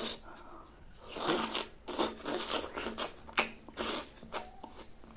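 Close-up eating sounds: a man biting and chewing soft, juicy slices of yellow fruit, with wet smacking and sucking noises and a few sharp clicks of the mouth.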